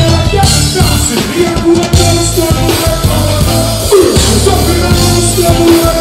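Live reggae band playing, with a heavy bass line under drums and sustained held notes.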